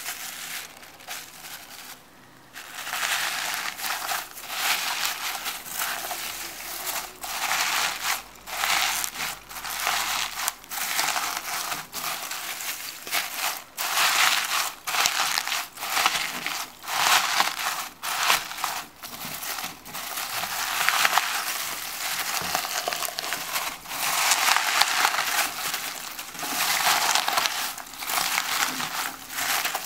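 Blue slime squeezed and kneaded by hand through a bowl of crumbled white foam beads, crunching and crackling in repeated squeezes, about one a second. It is quieter for the first couple of seconds, then much louder from about two and a half seconds in.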